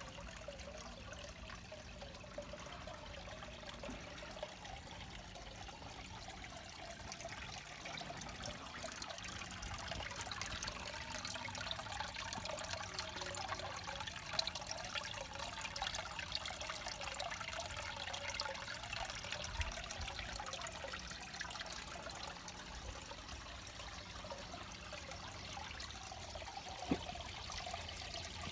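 Water trickling and splashing steadily into a small garden pond from the outflows of a bog filter and aquaponics setup, including two watering-can spouts pouring into the water. It gets somewhat louder about eight seconds in.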